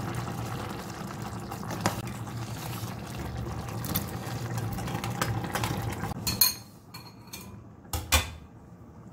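Stew boiling in a stainless steel pot, with clinks of a spoon and bowl against the pot. The bubbling drops away about six seconds in, around a sharp knock, and two more knocks come close together near the end.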